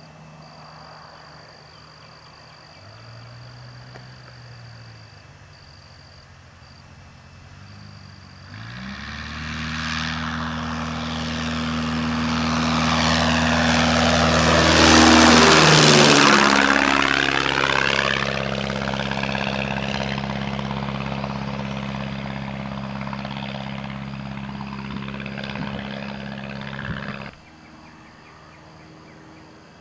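Continental A-65 four-cylinder air-cooled engine and propeller of a light airplane making a low pass overhead. It is faint at first and swells about eight seconds in. It is loudest midway, where its pitch drops as it goes by, then it runs on until it cuts off suddenly near the end.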